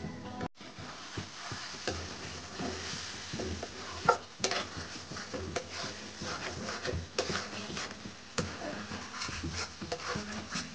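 Metal spatula stirring and scraping thick egg curry in a karai, knocking against the pan in irregular clicks and scrapes over a light sizzle, with one sharper knock about four seconds in.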